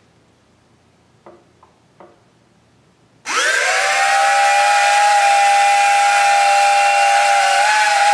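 Syma X8-series quadcopter motors, run without propellers on an over-voltage 4S (about 15 V) battery, spinning up sharply about three seconds in and then holding a loud, steady high whine of several tones beating against each other. A few small clicks come first.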